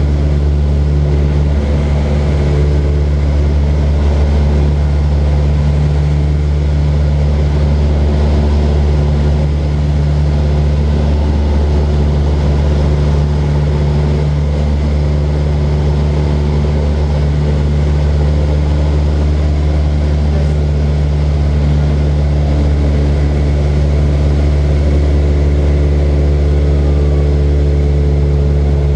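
Light aircraft's piston engine and propeller droning steadily, heard from inside the cockpit. The pitch and level hold even throughout, as in steady flight.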